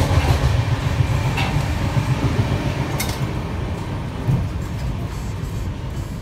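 A moving train carriage, heard from inside the coach: a steady low rumble of wheels on the track, with a few short knocks.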